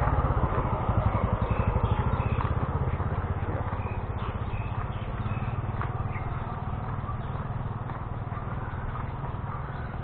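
A motor vehicle's engine running with a rapid, even pulse, loudest in the first couple of seconds and slowly fading after.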